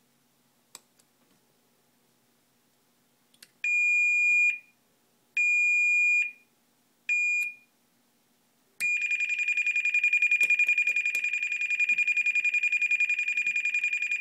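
Alarm buzzer of a Patlite warning light salvaged from a copier: a few clicks, then three short, steady, high-pitched beeps, then from about nine seconds in a continuous high tone with a fast pulsing warble.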